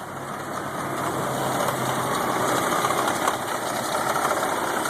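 1992 Range Rover Classic engine idling roughly, getting louder over the first couple of seconds and then holding steady.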